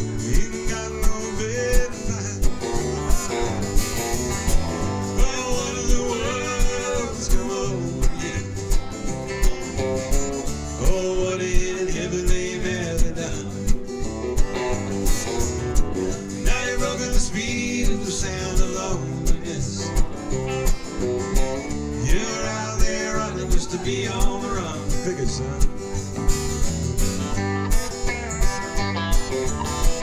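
Live country-folk band playing an instrumental break: strummed acoustic guitar keeps a steady beat under an electric guitar playing lead lines.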